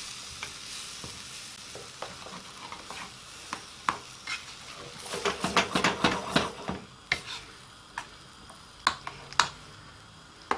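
A metal spoon stirring baked beans and curry in a frying pan, scraping and clicking against the pan, with a busy run of strokes around the middle and a few single clicks later. The pan sizzles faintly underneath.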